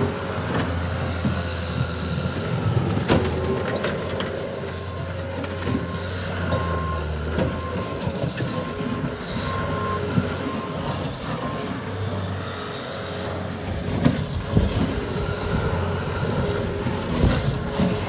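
Caterpillar 236B skid-steer loader's diesel engine running as the machine drives and works across gravel, with scattered knocks and rattles. A backup alarm beeps repeatedly for several seconds in the middle.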